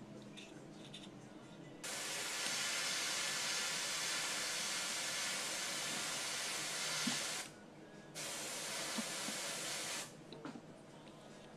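Compressed air hissing in two bursts, one of about five and a half seconds and a shorter one of about two seconds, each starting and stopping abruptly as a trigger is pressed and released.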